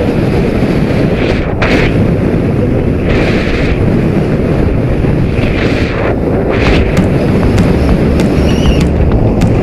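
Wind buffeting the microphone of a camera on a moving motorcycle, heavy and steady, over the running of the motorcycle.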